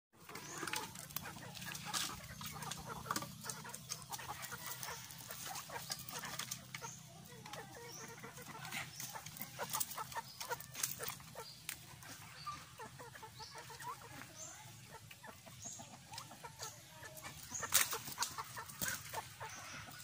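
Backyard chickens clucking at feeding time, with a few short high chirps. Sharp knocks and clatters come throughout, the loudest twice near the start and once near the end.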